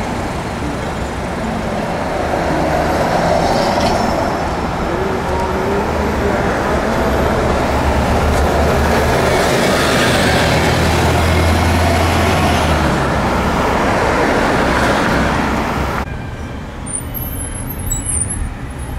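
Busy city street traffic with a bus passing close by; its engine hum is loudest in the middle. The traffic noise drops away abruptly near the end.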